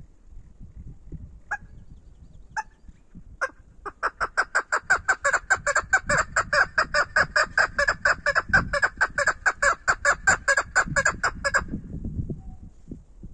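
Female chukar partridge calling: a few single clucks, then a fast, even run of repeated chuck notes for about seven seconds, which stops shortly before the end.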